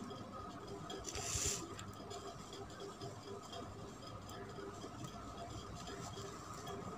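Faint rustling and scratching as fresh mint leaves are stripped from their stems with a small knife and fingers, with one louder rustle about a second and a half in.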